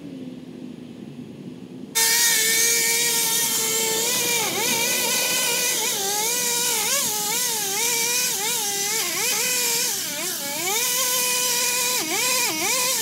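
Powered pole saw cutting tree branches: a loud, high-pitched motor whine that starts abruptly about two seconds in, its pitch dipping and recovering again and again as the chain bites into the wood and lets go.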